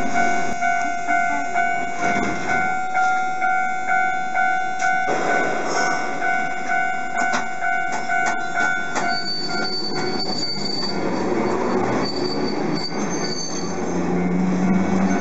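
A Hankai Tramway Mo 351-type tram passing close by over a flat track crossing, its wheels clacking over the rail junctions and squealing high in the second half. A level-crossing warning bell rings steadily, about twice a second, and stops about ten seconds in.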